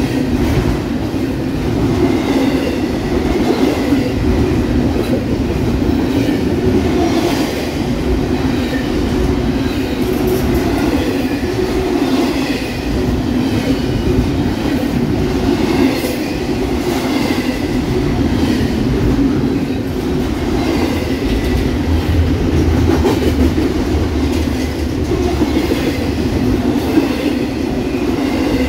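Double-stack intermodal freight train's well cars rolling past close by: a steady rumble with the wheels clicking over the rail joints.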